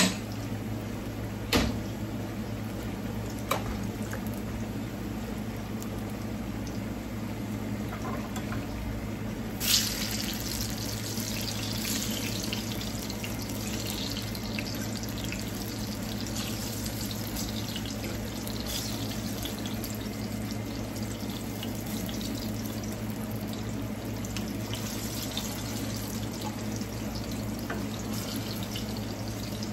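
Ripe plantain slices frying in hot oil: a steady sizzle that turns louder and more crackly about ten seconds in, as the slices are turned over in the pan. A few sharp knocks come in the first four seconds.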